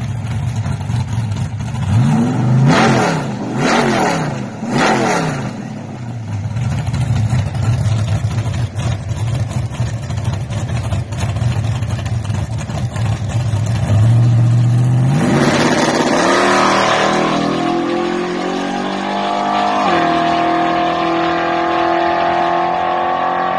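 Drag-racing pickup truck's engine revved three times on the starting line, then idling with a heavy low drone while staged. About fifteen seconds in it launches at full throttle and accelerates away, its pitch climbing and dropping back at gear changes about two and five seconds later.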